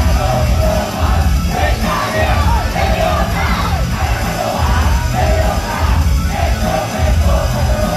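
Idol-pop song played loud through a live-house PA, with a heavy bass beat and a girl group singing into microphones; fans in the crowd yell along.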